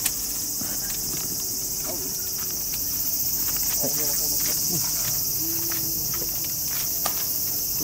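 Steady, high-pitched chorus of insects trilling without a break, with faint distant voices and a few light clicks underneath.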